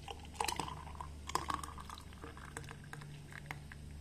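Thick milkshake poured from a mixer jar into a glass, splashing and gurgling. It is busiest in the first couple of seconds and thins to scattered drips and splashes as the glass fills.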